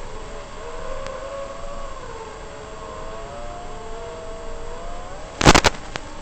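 FPV quadcopter's brushless motors whining, several pitches rising and falling together with the throttle. About five and a half seconds in, a short, loud burst of noise cuts across it.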